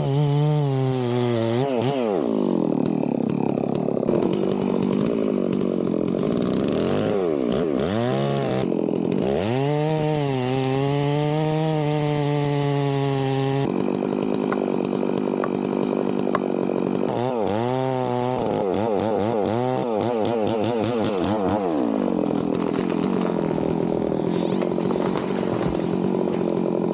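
Chainsaw running at high revs through a long cut into acacia wood, its engine pitch dropping as the chain bogs down under load and climbing back several times.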